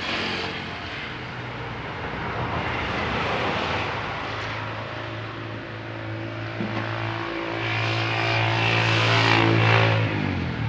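An engine running with a steady hum that builds up to its loudest about nine to ten seconds in, then drops away.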